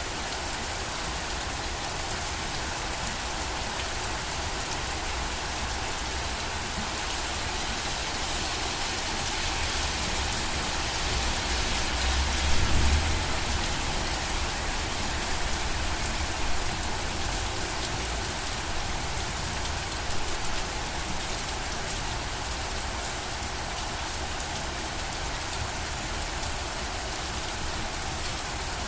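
Steady rain falling, an even hiss of drops on surfaces. A brief low rumble comes about halfway through, with a couple of smaller swells after it.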